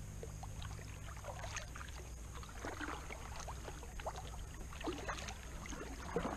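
Double-bladed kayak paddle strokes: the blades dip into calm water with small, irregular splashes and drips, over a low steady hum.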